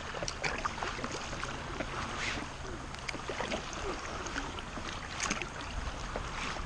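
Paddle strokes and water dripping and trickling as a stand-up paddleboard is paddled, with many small splashes and a couple of stronger strokes.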